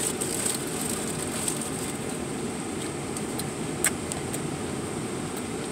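Steady low rumble inside a car's cabin, with faint clicks of a cheeseburger being chewed close to the microphone and one sharper click about four seconds in.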